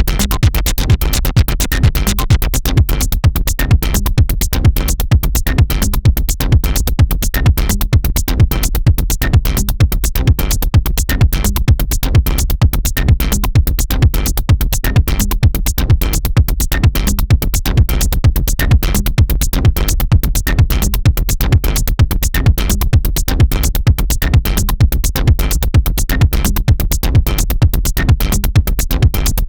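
Electronic dance music with a fast, steady drum-machine beat and heavy bass.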